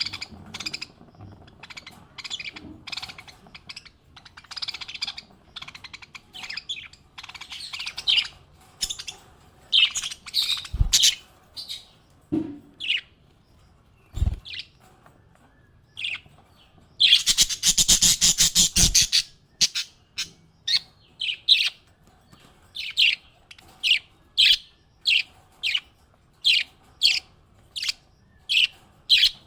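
Small pet parrots chirping: short, sharp high chirps in irregular runs, a loud burst of rapid chattering about two-thirds of the way in, then single chirps at a steady pace of a little more than one a second. A couple of soft low thumps in the middle.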